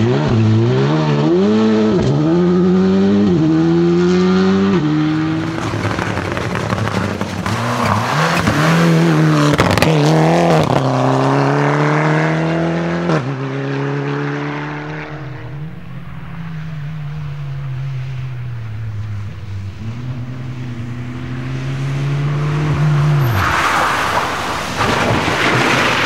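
Rally car engines driven hard: the engine note climbs and drops sharply over and over as the car shifts up through the gears, with quick blips and dips in between. Later a car goes by at steadier, slowly falling revs, and a short burst of noise comes near the end.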